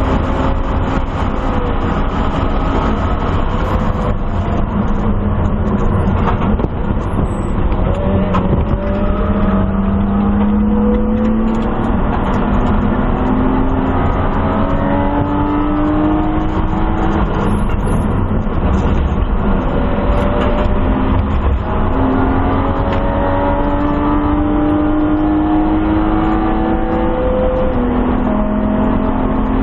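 1997 BMW M3's straight-six engine at racing speed, heard from inside the stripped, roll-caged cabin along with road and wind noise. Its pitch climbs steadily for several seconds at a time and drops back at each upshift as the car pulls out of a slower corner.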